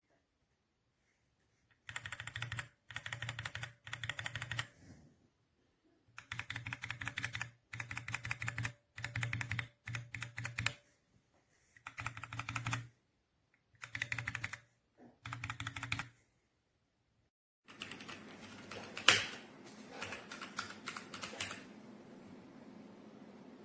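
Typing on a TMKB T63 compact mechanical keyboard: fast runs of key clacks lasting about a second each, with short pauses between them. In the last few seconds the typing goes on over a steady background hiss, with one sharp, louder clack.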